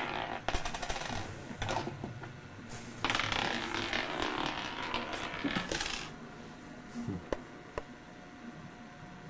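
Small metal objects jingling and clinking in two spells of a few seconds each, then a few single light clicks.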